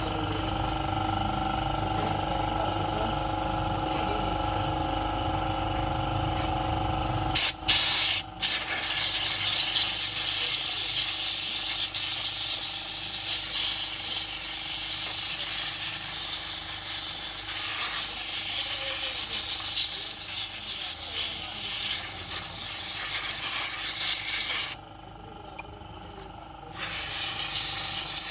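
High-pressure spray jet hissing steadily, as in an engine-bay wash. It comes on suddenly after about seven seconds of a steady machine hum, breaks off for about two seconds near the end, and resumes.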